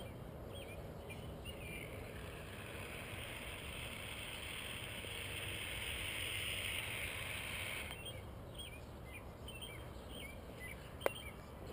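Aerosol can of expanding spray foam hissing as foam is dispensed through its straw nozzle into a soda bottle; the hiss swells and then stops about eight seconds in. Birds chirp in the background, and there is a single sharp click near the end.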